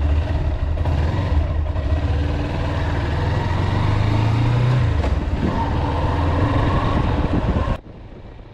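Motorcycle engine running just after being started, its pitch rising a little in the middle and then settling back. The sound cuts off sharply near the end.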